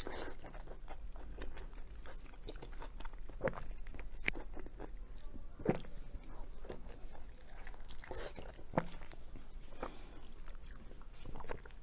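A person chewing and biting sausage close to the microphone, with scattered wet clicks from the mouth.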